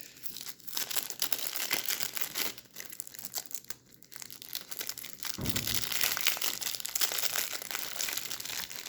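Plastic shrink-wrap being torn open and crinkled by hand, an irregular crackling that grows busier and louder over the last few seconds.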